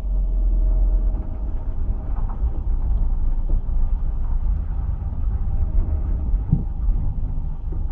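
A 2002 Ford Fiesta's cabin rumble on the move, with a couple of short knocks, about 2 and 6.5 seconds in, which the owner puts down to a failed rear silentblock (rubber suspension bushing).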